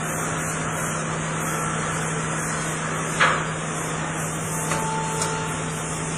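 TBT BWW 250 CNC deep-hole boring machine standing with its units running: a steady mechanical hum and hiss, broken by one sharp metallic clank about three seconds in and two light clicks near the end.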